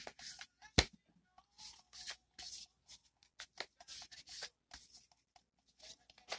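A 78-card tarot deck being shuffled by hand, cards slid and pulled off the pack in short, irregular rustling strokes with soft slaps of card on card. One sharper tap about a second in.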